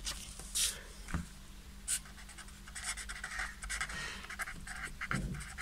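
Black felt-tip marker scratching across paper, drawing a line and writing out a word: a couple of short strokes, then a quicker run of small strokes from about halfway in.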